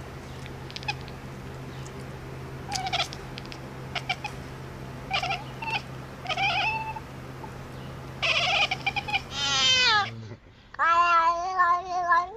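A cat meowing: a few short calls, then louder ones near the end, one falling in pitch and a long wavering meow.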